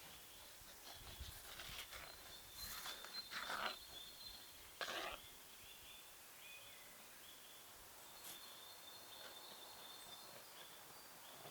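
Faint outdoor ambience with high, thin chirping from birds or insects, broken a few times in the first half by short rustling noises.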